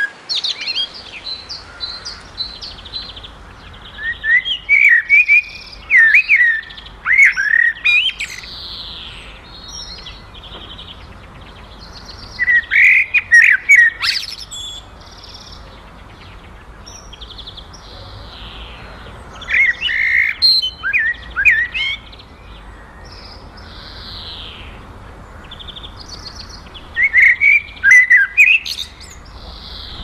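Male common blackbird singing: repeated phrases of low, fluty warbling notes, each trailing off into a higher, softer squeaky twitter, with pauses of a few seconds between phrases.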